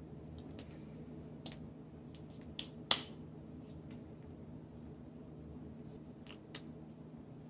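Scattered soft clicks and taps from a person signing in sign language, from hand, finger and mouth movements, over a steady low hum; the loudest click comes about three seconds in.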